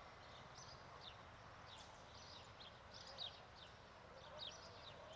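Faint birds chirping: quick, high, falling notes repeating several times a second over a low background hush.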